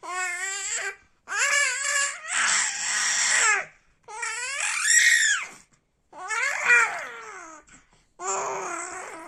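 A baby's voice making a series of about six short, wavering, whiny cries and coos, each around a second long, with the pitch bending up and down. This is the sleepy fussing he makes as he falls asleep.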